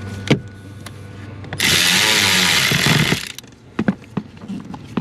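A power driver runs for about two seconds, driving in a mounting screw for a new blower motor. A sharp click comes before it and a few knocks follow.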